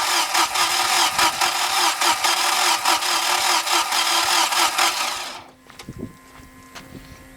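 GAZelle's ZMZ-405 four-cylinder petrol engine being cranked by its starter motor: a steady whine with a fast regular pulsing, the engine not catching. The cranking cuts off abruptly a little over five seconds in.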